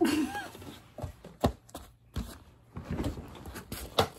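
Irregular thuds and taps on a hardwood floor from children's sock feet moving about and a ball bouncing, with a short squeak near the start.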